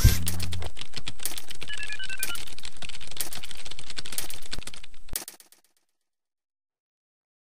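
Rapid clicking like typing on a keyboard, with a few short electronic beeps about two seconds in. It cuts off abruptly about five and a half seconds in, followed by silence.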